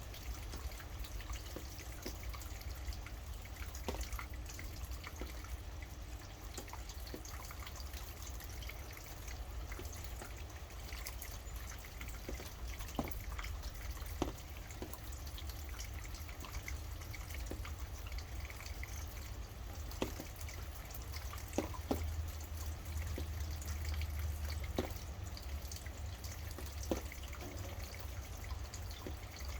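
Rain dripping, with single drops striking irregularly every second or two over a steady low rumble.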